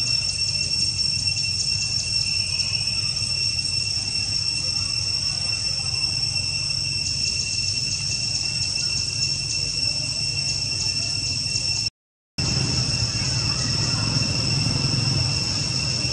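Steady high-pitched insect chorus, two ringing pitches with fast pulsing, over a low rumble. The sound drops out completely for about half a second near twelve seconds in.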